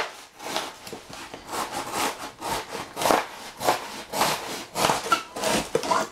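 A large kitchen knife sawing through a corrugated cardboard box, in rough back-and-forth strokes about two a second.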